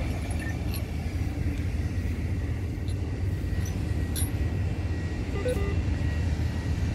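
Steady low background rumble with a faint steady high tone and a few faint clicks.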